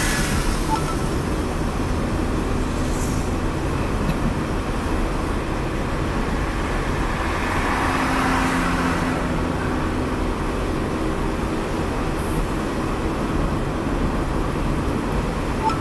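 Steady road and engine noise heard from inside a moving car: a low rumble of tyres and engine, a little louder about eight seconds in.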